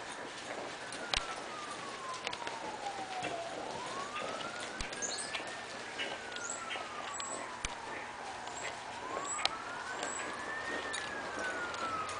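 A siren wailing, its pitch rising for about two seconds and falling for about three, over and over about every five seconds. Scattered short clicks and a few faint high chirps sound around it.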